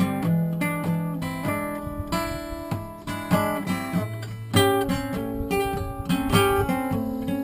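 Background music: acoustic guitar strumming and picking chords with a steady rhythm.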